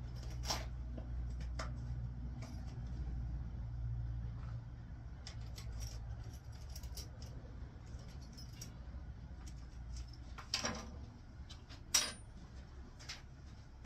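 Scattered light metallic clicks and rattles of hand tools and small screws, the two sharpest near the end, while a winch control box cover is being unscrewed. A low steady rumble runs under the first half.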